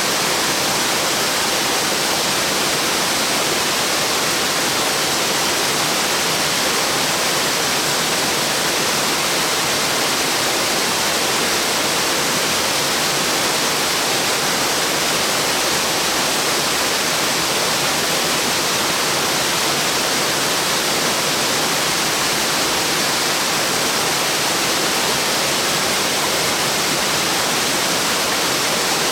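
Water of a tall, wide branching waterfall (111 m drop, 40 m across) falling and splashing in a steady, unbroken rush, its sound sitting mostly in the upper range with little deep rumble.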